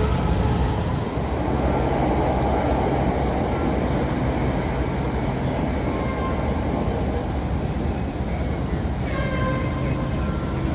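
Chicago 'L' train running on the elevated steel tracks, a loud steady rumble, with a brief higher-pitched squeal near the end.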